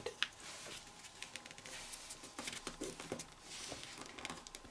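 Printer paper being folded by hand: faint rustling with soft scattered clicks as a corner is folded over and the crease pressed flat.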